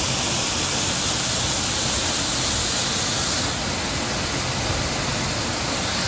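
Waterfall pouring into its plunge pool: a steady, loud rush of falling water, easing slightly a little past halfway.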